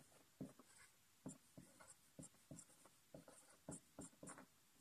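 Felt-tip marker writing on a whiteboard: a faint string of short, irregular strokes and taps as figures are written.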